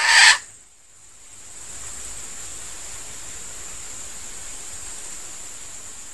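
A red junglefowl cock's last loud clucking note cuts off just after the start. A steady hiss with a thin high whine follows.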